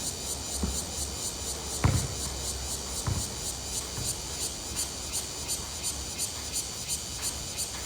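Insects chirping in a steady high-pitched rhythm of about three pulses a second, over a low hum. A few dull thumps come in the first three seconds.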